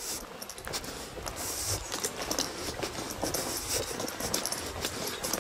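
Walking footsteps crunching on a gravel path, a steady run of short crunches, with low rumble from handling or wind on the microphone.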